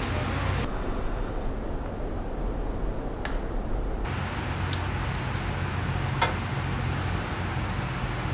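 Steady low hum of workshop background noise, with a few faint metallic clicks, about three, as a motorcycle roller chain is handled at the rear sprocket.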